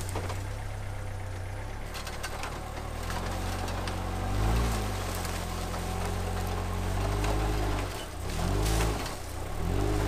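Suzuki Vitara rock crawler's engine running low under load, blipped up and back down in short revs a few times as it climbs.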